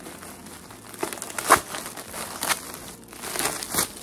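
Gift wrapping crinkling in quick, irregular crackles as a gift is unwrapped, the loudest about one and a half seconds in.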